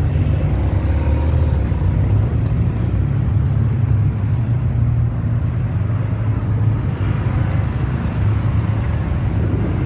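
Police escort motorcycles and convoy cars rolling slowly past close by, a steady low engine rumble.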